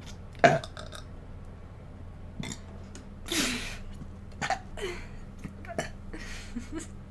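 A person burping repeatedly: a string of short burps, the loudest about half a second in, with a longer, noisier burp around the middle.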